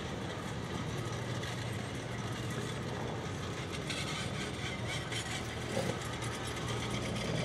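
Tour boat's engine running with a steady low drone as the boat moves slowly through the bay.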